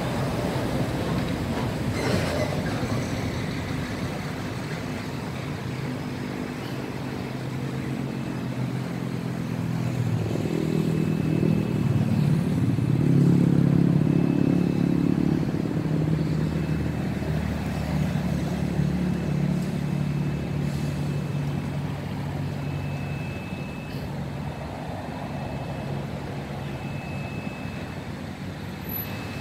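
A motor vehicle engine running steadily, growing louder with a shift in pitch about a third of the way in and easing off again in the second half.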